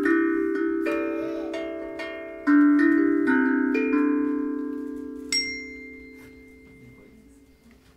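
Slow, ringing chords struck on a mallet instrument such as a vibraphone, about five in the first four seconds, each left to ring and fade. A single high bell-like ping sounds about five seconds in, and the music dies away toward the end.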